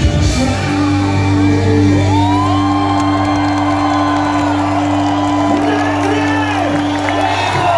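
Power metal band's final chord held and ringing out, with the crowd whooping and cheering over it from about two seconds in.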